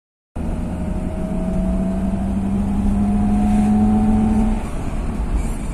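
Car engine and road rumble heard from inside the cabin while driving; the engine note climbs slowly as the car gathers speed, then drops away about four and a half seconds in as it eases off.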